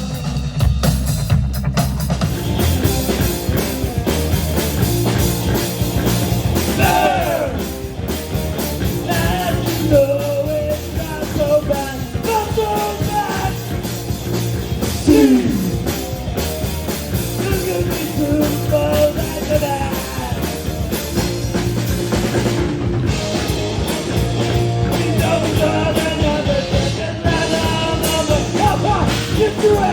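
A rock band playing live, with drum kit, bass and electric guitars, and a lead melody line that bends and slides in pitch over the beat.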